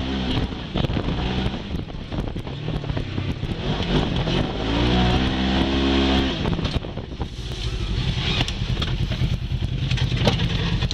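Polaris RZR side-by-side's engine running under way on a rough dirt track, revving up about halfway through and then easing off, with frequent knocks and rattles from the bumps.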